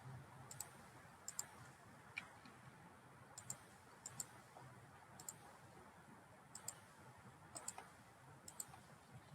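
Faint computer mouse clicks, scattered and often in quick pairs like double-clicks, over a low steady hum.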